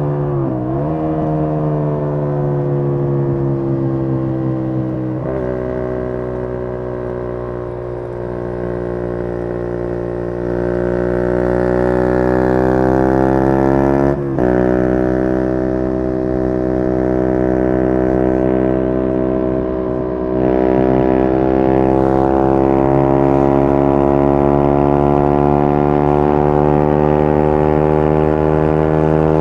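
Suzuki GSX-R150's single-cylinder engine running through a Yoshimura exhaust while the bike is ridden, the pitch climbing slowly as it accelerates, dropping suddenly about halfway through at a gear change, then climbing again; the exhaust gets louder about two thirds of the way in.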